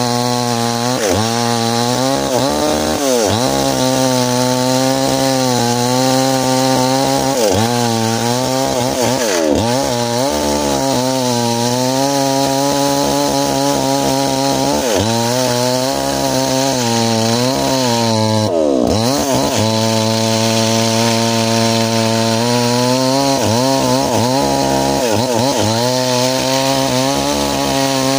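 Small chainsaw running at high revs while cutting ironwood. Its engine note dips in pitch and recovers about eight times as the chain loads in the hard wood.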